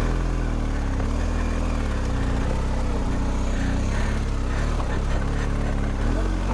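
BMW GS Adventure boxer-twin engine running at low speed under load as the bike crawls up a rock slab. The revs rise and fall several times as the rider works the throttle.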